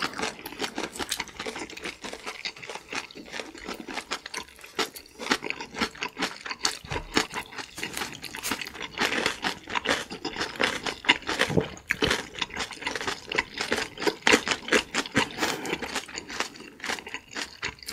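Close-miked chewing of kimchi-wrapped noodles by two eaters: wet smacking and crunching of kimchi cabbage leaves, heard as a dense, irregular run of quick clicks.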